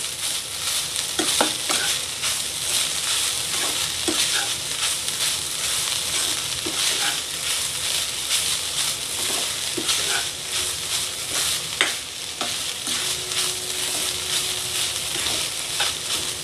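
Crumbled soya with onion and carrot sizzling steadily in a non-stick kadhai over a high gas flame, stirred and tossed with a spatula that scrapes against the pan at irregular intervals.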